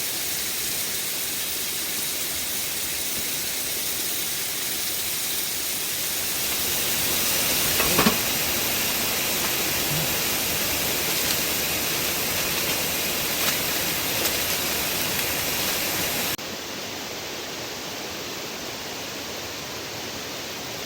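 Steady rushing of a valley stream's running water. It drops abruptly to a quieter rush about two-thirds of the way through. There is a single brief knock about eight seconds in.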